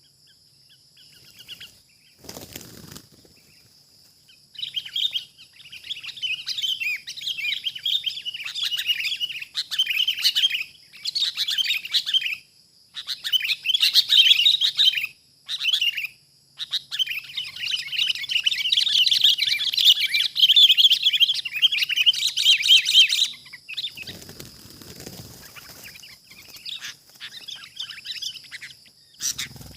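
Sooty-headed bulbuls (kutilang) giving rapid, harsh chattering calls in long excited runs, loudest about two-thirds of the way in, then stopping. There is a single knock about two seconds in, and a rustling noise once the calls end.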